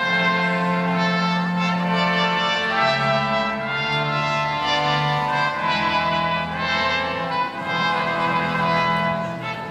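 Slow orchestral music led by brass, playing held chords that change every second or so.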